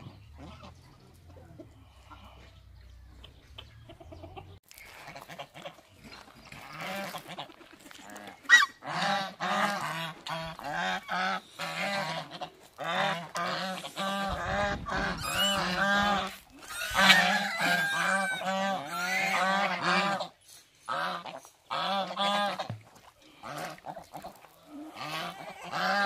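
A flock of domestic geese honking over and over, short harsh calls coming a few a second. The honking starts about five seconds in and is loudest through the middle.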